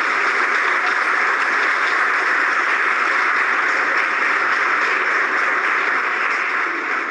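A large seated audience applauding steadily and loudly.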